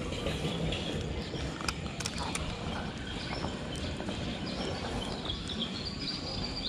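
Steady outdoor background noise at the water's edge with faint, short bird chirps and a few sharp light clicks.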